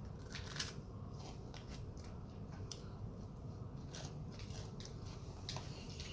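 Someone chewing crunchy vacuum freeze-dried rambutan and mango: irregular crisp crunches, a few seconds apart, over a low steady hum.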